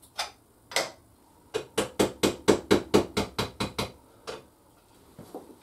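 Hammer tapping a 9 mm socket used as a drift to drive a worn bushing out of a motorcycle gear-shift lever held in a vise: two single taps, then a quick even run of about a dozen taps, about five a second, and one last tap.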